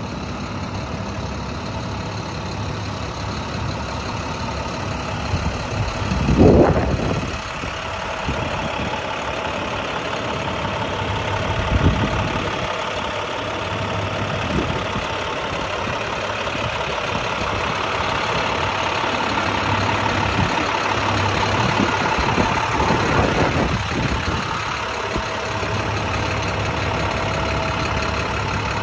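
International 4300's MaxxForce DT inline-six turbo diesel idling steadily, with a short louder rush of noise about six seconds in.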